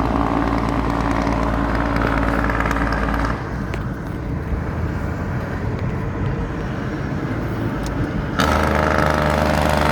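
Semi truck's diesel engine brake (Jake brake) running with a steady, loud, pitched rattle. It shuts off about three seconds in, leaving quieter engine and road noise, then cuts back in sharply near the end after a downshift.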